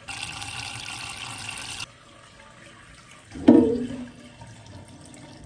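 Water spraying from a pull-down kitchen faucet sprayer into a cup as a steady hiss, shut off abruptly about two seconds in. About a second and a half later comes one brief, louder sound with a low tone that fades within a second.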